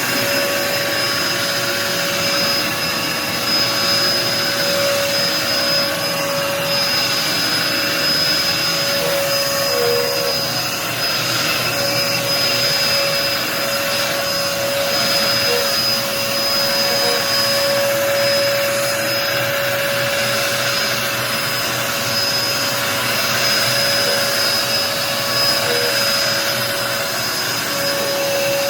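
Dirt Devil Endura Max upright bagless vacuum cleaner running steadily: a rush of air with a steady motor hum and a high whine over it.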